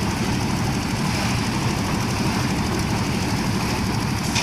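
A heavy engine running steadily, with a low, even rumble.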